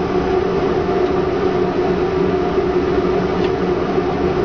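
Submarine diesel engine running at a steady speed, a loud even drone with a constant low hum, heard inside the cramped engine room.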